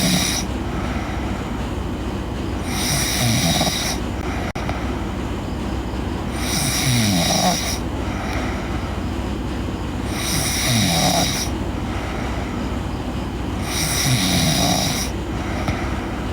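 A sleeping girl snoring: four long snores about every three and a half to four seconds, each with a rasp that falls in pitch. A steady low hum runs underneath.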